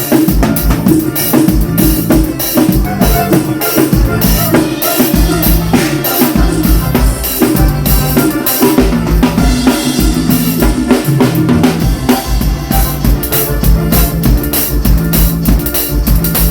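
A drum kit played continuously in a busy groove: kick drum, snare and cymbal hits, over repeated low pitched bass notes.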